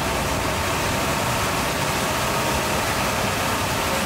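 Water truck's engine running steadily under a hiss of spraying water.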